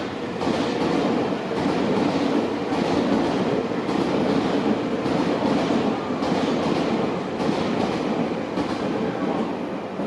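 Mizuma Railway electric train running slowly on the track as it pulls in toward the platform, a steady running noise of wheels on rails.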